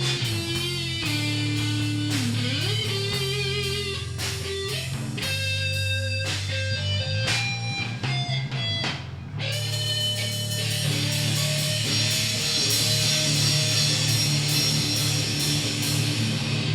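Rock band playing an instrumental passage: electric guitar lines with bends over bass guitar and drums. About nine seconds in there is a brief break, and then the band comes back in with a heavier, fuller section.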